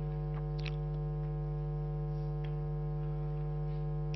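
Steady low hum with a stack of even overtones, unchanging throughout, with a couple of faint ticks about half a second and two and a half seconds in.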